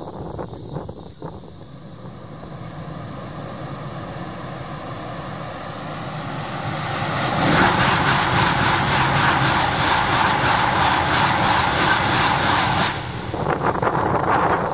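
Shinkansen bullet train passing at high speed at a tunnel portal: a rushing rumble that builds for several seconds, then a loud, dense rush of the train going by for about five seconds, which drops off sharply as the last car clears.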